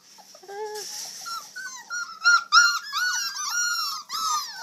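Several young puppies whining and squeaking together, a rapid run of short high-pitched cries that overlap, growing busier after the first second.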